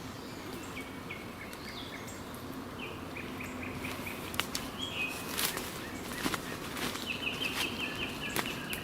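Small songbirds singing in woodland: short repeated chirps, then a fast trill of evenly spaced notes about seven seconds in. A few sharp clicks or snaps fall in the second half.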